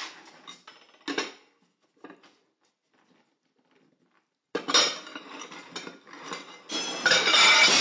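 A ceramic bowl clinking against the plate under it as a dog noses and licks it on a kitchen counter, a few separate clinks in the first two seconds. About four and a half seconds in, the bowl is knocked and tipped with a loud clatter, which turns into a dense, loud ringing clatter near the end.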